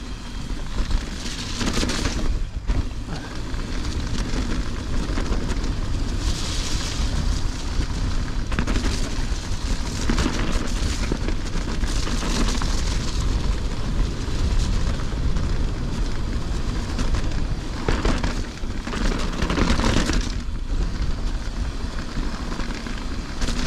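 Wind buffeting a chest-mounted action camera's microphone over the rumble of mountain bike tyres on a fast descent. A steady low rumble runs throughout, with louder rushes of noise coming and going several times.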